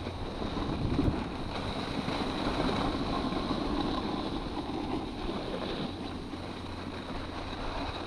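Wind rushing over a body-worn action camera's microphone during a downhill run on a groomed ski piste at about 25 km/h, with the hiss and scrape of gliding over packed snow. A faint steady high whine runs underneath.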